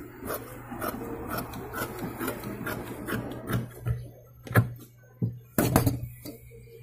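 Scissors snipping through sweatshirt knit fabric, about two snips a second, followed by a few louder knocks as the scissors and fabric are handled on the wooden table.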